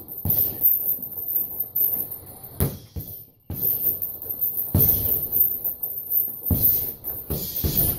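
Boxing gloves hitting a heavy punching bag in an uneven series of punches, some landing in quick pairs, with short pauses between combinations.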